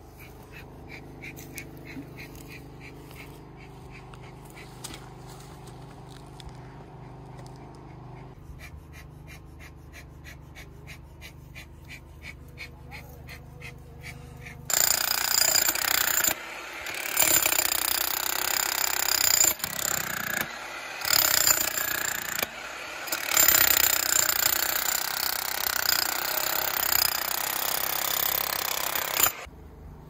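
Handheld demolition hammer chiselling into a rock face, starting about halfway through and running in several loud bursts with short pauses before stopping near the end. Before it, a steady low hum with faint regular ticking.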